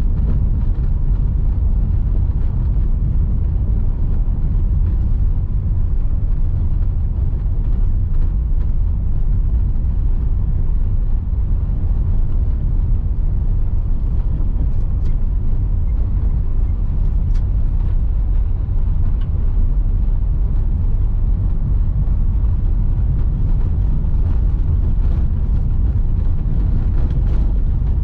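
Car driving on a gravel road: a steady low rumble of tyres and engine, with occasional faint ticks.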